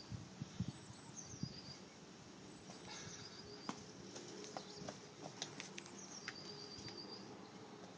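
Faint bird chirps: short high trills several times over a quiet outdoor background, with scattered small clicks.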